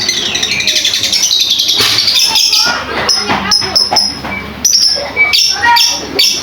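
Lovebird chirping and chattering in a quick run of short, high notes.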